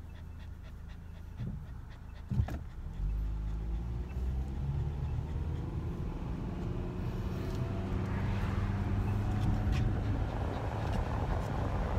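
Car engine at a steady low hum, then a single knock about two and a half seconds in. The engine then picks up and climbs in pitch as the car accelerates, with road and wind noise building toward the end. A dog pants alongside.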